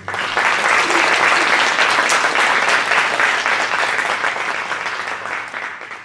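Audience applauding, breaking out suddenly and thinning out near the end.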